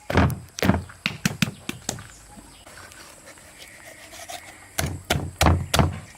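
A series of irregular knocks and thumps: a cluster of about six in the first two seconds, a quieter stretch, then four more around five seconds in.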